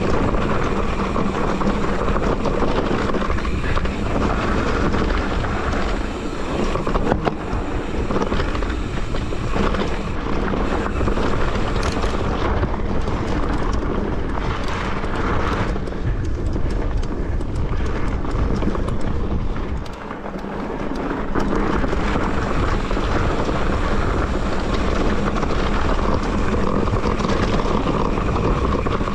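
Running noise of an electric mountain bike being ridden on a rough trail: wind buffeting the camera microphone over a steady rumble, with scattered knocks and rattles from the bike. The noise dips briefly about twenty seconds in.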